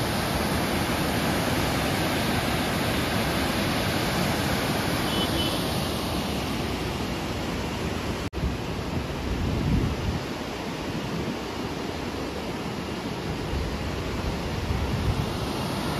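Steady rush of white water over the rocks of a mountain river, mixed with wind. About halfway through it drops out for an instant at a cut, then goes on as a similar steady rush.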